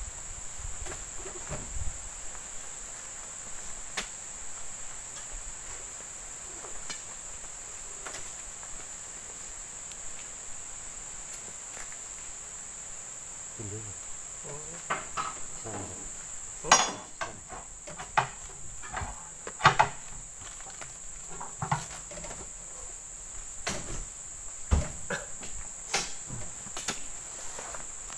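Steady high drone of insects in an oil palm plantation, with scattered knocks and thuds from loading oil palm fruit bunches: bunches are speared with a long pole and heaved up onto a truck's load. The knocks come more often and louder in the second half, the loudest two about two-thirds of the way through.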